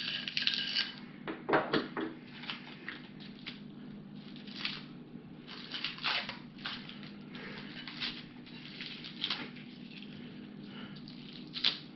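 Plastic packaging crinkling and rustling as an aluminium extrusion rail is handled and unwrapped, in irregular short bursts with a couple of light knocks.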